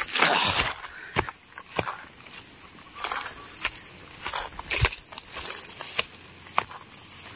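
Footsteps on a dirt path through undergrowth at a walking pace, over a steady high-pitched buzz of insects.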